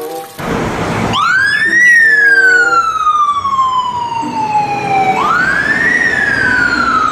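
Fire engine siren on a wail: after a brief rush of noise it sweeps quickly up in pitch and then slowly falls, twice.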